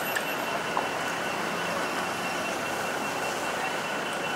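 Steady city street ambience: a continuous wash of traffic and distant city noise with a faint, steady high-pitched tone running through it, and two light clicks within the first second.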